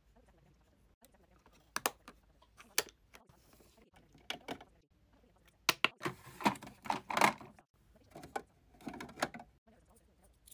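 Irregular clicks and taps, single ones spaced a second or so apart at first, with a denser cluster about six to seven and a half seconds in and another near nine seconds.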